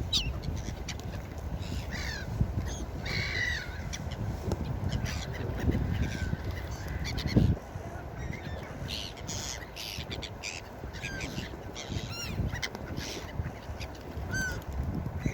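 Gulls calling repeatedly, many short, bending cries overlapping one another, over a steady low rumble. A single low thump stands out about seven seconds in.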